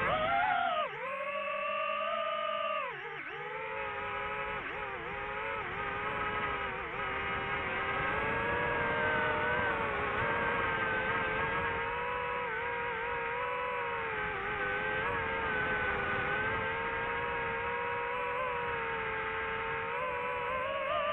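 DJI FPV quadcopter's electric motors and propellers whining steadily, their pitch rising and falling with the throttle and dipping sharply about three seconds in.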